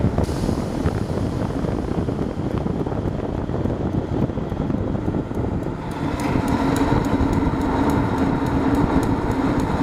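Propane forced-air heater running lit: a steady rush of burner flame and fan. About six seconds in a steady hum comes up, joined by a fast, faint, even ticking from the piezo igniter, which clicks all the time.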